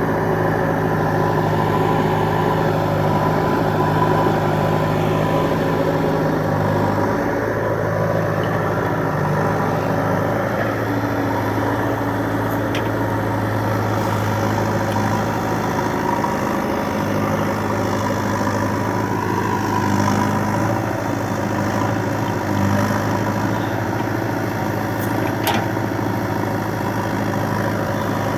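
Diesel engine of a JCB 3DX backhoe loader running steadily, its pitch stepping between a few different engine speeds as it works.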